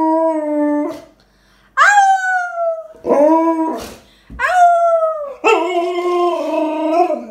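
Alaskan malamute howling and 'talking' in a string of drawn-out woo calls. A held howl ends about a second in, then four more follow after short gaps, each jumping up in pitch and sliding back down.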